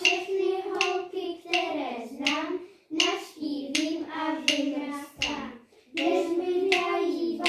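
A group of children singing together, with sharp hand claps marking the rhythm of the song.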